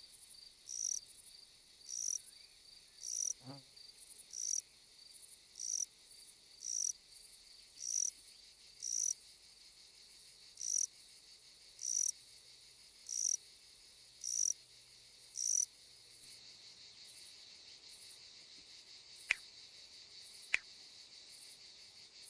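Insects stridulating: a short, high chirp repeated roughly once a second over a steady high-pitched trill. The chirps stop about two-thirds of the way through while the trill carries on, and two sharp clicks come near the end.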